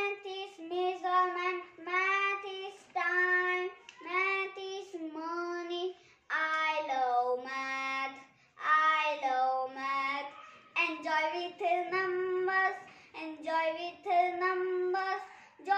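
A young boy singing alone without accompaniment: a string of short sung phrases with held notes, each followed by a brief pause.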